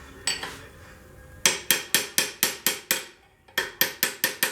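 Hammer striking steel in quick runs of about six blows a second, each with a short metallic ring, beating a bearing inner race off a mower deck shaft. A single blow comes first, then two rapid volleys with a brief pause between them.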